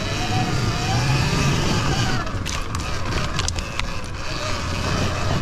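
Sur-Ron Ultra Bee electric dirt bike riding off-road: a faint electric-motor whine gliding up and down over steady rumble and tyre noise, with a run of sharp ticks and knocks in the middle.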